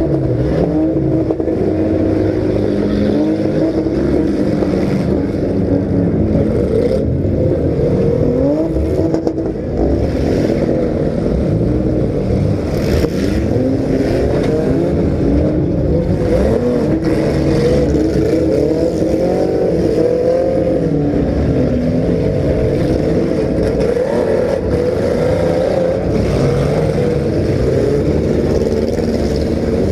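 Several compact cars' engines revving and running hard together in a demolition derby heat, their pitches rising and falling against one another, with a few knocks from collisions.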